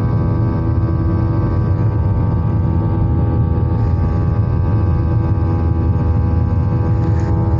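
Airliner engine noise heard inside the passenger cabin as the plane climbs after takeoff: a loud, steady drone with a hum of fixed tones over it.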